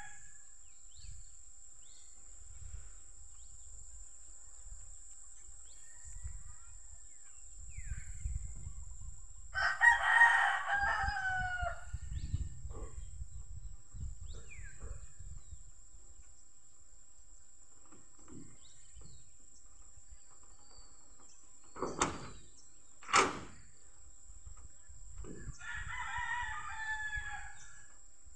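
A rooster crowing twice, each crow about two seconds long, once about a third of the way in and again near the end. Two sharp knocks, about a second apart, fall between the crows.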